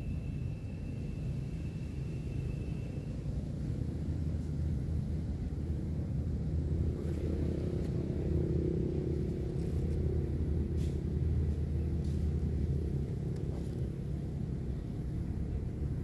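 A steady low mechanical rumble with a low hum, a little stronger from about seven seconds in, with a few faint clicks in the second half.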